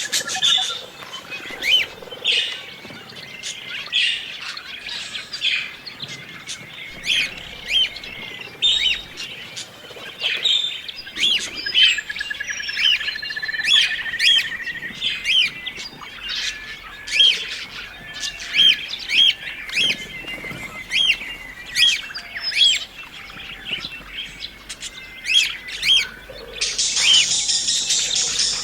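Flock of budgerigars (parakeets) chirping: many short, sharp contact calls overlapping, with a long warbling trill midway through and a harsh, noisy burst near the end.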